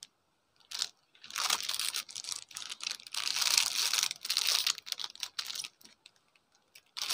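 Clear plastic packaging crinkling and rustling in uneven bursts as it is handled and pulled off a wristwatch, starting about a second in.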